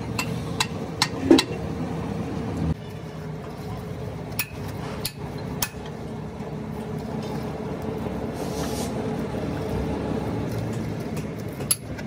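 Steel parts of a truck steering gearbox being washed by hand in a basin of liquid: sloshing, with a few sharp clinks of metal on metal or on the basin, over a steady engine hum.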